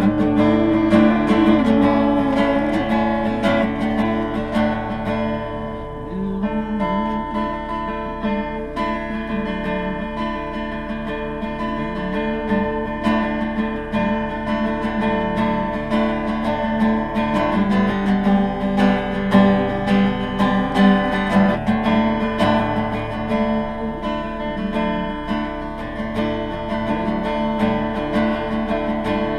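Acoustic guitar being played, a continuous run of picked notes and chords.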